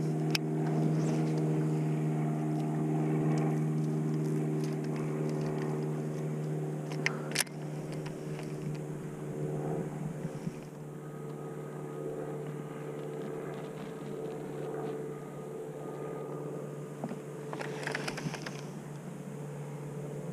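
Bow-mounted electric trolling motor running with a steady hum, quieter from about halfway through. There are a couple of sharp clicks, and a brief hiss near the end.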